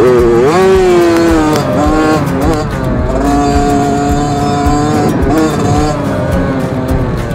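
Yamaha YZ65 two-stroke dirt bike engine revving as it is ridden. Its pitch rises sharply at the start and falls away, then holds steady for about two seconds in the middle before dropping and easing off near the end.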